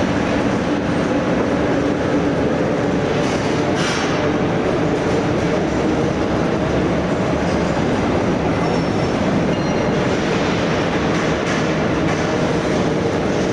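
Overhead travelling crane running while it carries a heavy suspended load: a steady, loud mechanical rumble.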